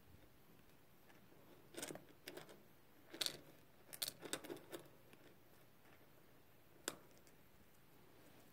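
Hamster eating, nibbling and cracking a sunflower seed: faint, sharp crunching clicks in small clusters, mostly between about two and five seconds in, with one more around seven seconds in.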